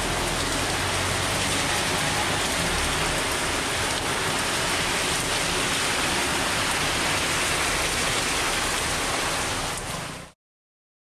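Steady rain falling on wet pavement and surfaces, an even dense hiss that fades out near the end.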